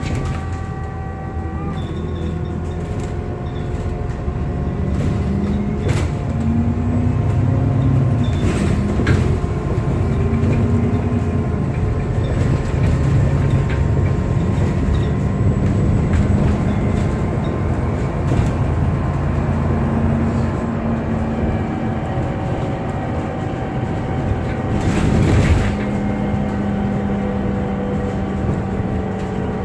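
An Alexander Dennis Enviro400 MMC double-deck bus on the move, heard from on board: the engine hum rises and falls as it pulls away and changes gear, with a steady high whirring whine over it and occasional knocks and rattles. Near the end there is a brief, louder rush of noise.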